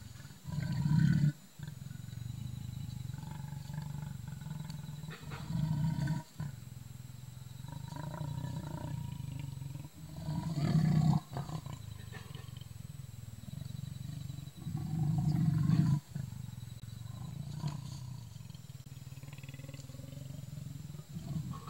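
Male leopard growling low and continuously at its own reflection, swelling into four loud snarling bursts about five seconds apart.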